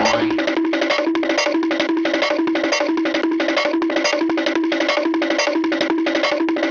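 Hanna-Barbera cartoon running sound effect: a fast, even patter of woodblock-like taps over a low, repeating plucked note, looping steadily.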